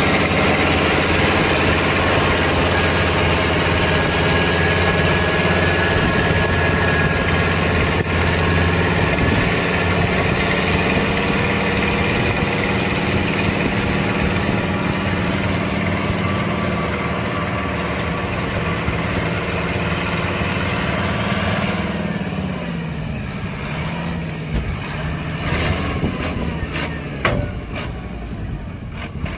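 A large engine running steadily, then slowing down and dying away about three-quarters of the way through, followed by a few scattered clicks and knocks.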